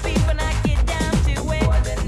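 Electronic dance music with a fast, steady beat and synth chords.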